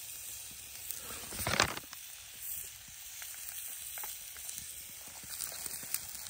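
Ribeye steak and oiled sourdough bread sizzling on a cast-iron camp griddle over a campfire: a steady frying hiss with scattered small crackles, and one short, louder burst about a second and a half in.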